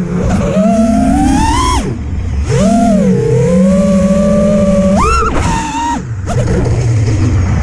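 Brushless 2206 Xilo Stealth motors and propellers on a 5-inch FPV quad whining, the pitch rising and falling with throttle. It climbs over the first two seconds and drops, holds steady, then spools up sharply about five seconds in on a punch-out, with short throttle cuts just after.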